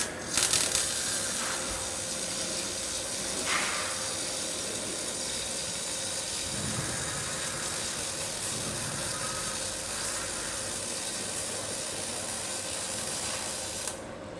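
MAG (CO2-shielded) welding arc from an automatic door-edge seam welder: the arc strikes with a few sharp cracks, then runs as a steady crackling hiss for about fourteen seconds and cuts off abruptly near the end.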